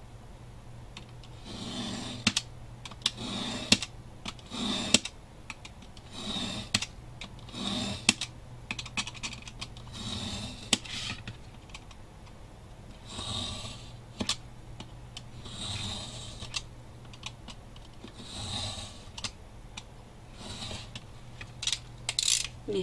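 Snap-off utility knife blade drawn again and again along a metal ruler, cutting through thick grey chipboard: a scraping stroke every second or so, with a few sharp clicks between strokes.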